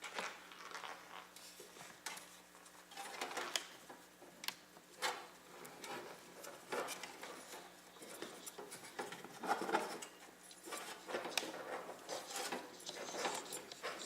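Irregular rustling, scraping and clicking of computer cables being pulled through and tucked into a PC case's cable-routing holes.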